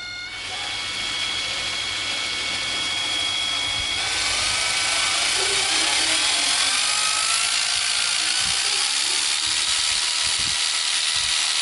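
National EZ6506 12V cordless impact driver running free with no load, a continuous motor-and-gear whine. It grows louder over the first few seconds, runs steadily, then cuts off sharply as the electric brake stops it.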